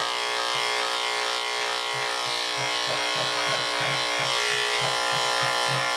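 Electric dog grooming clipper with a #10 blade running steadily as it shaves matted fur, an even motor hum. From about two seconds in, a low pulsing runs underneath it.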